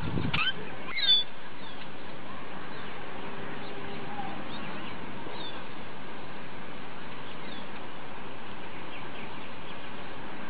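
Steady background hiss with short, high bird chirps: a quick cluster about a second in, then a few fainter ones scattered later.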